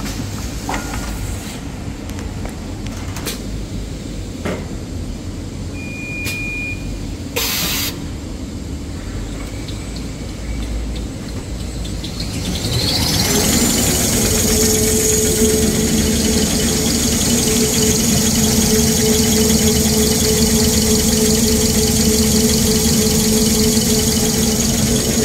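Jumbo-roll toilet tissue converting machine running, a low rumble with a few clicks at first. About halfway through it speeds up with a rising whine, then runs louder and steady with a high whine and a lower hum.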